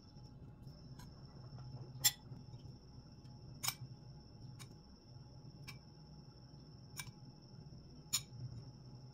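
Scattered light clicks of a kitchen utensil against a bowl, about six separate ticks, as rice and chicken filling are placed onto a nori sheet, over a faint steady hum.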